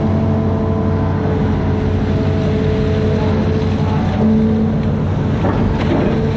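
Amphibious excavator's diesel engine running steadily: a continuous low drone with a few higher whining tones over it that come and go.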